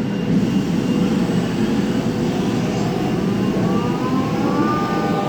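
5-axis CNC cutting machine running through a cut: steady machine noise, with a whine that rises in pitch from about halfway through and then holds steady near the end.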